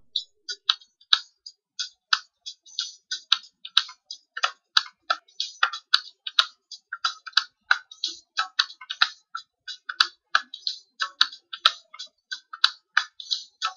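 Rapid, irregular clicking of a computer keyboard and mouse, several clicks a second.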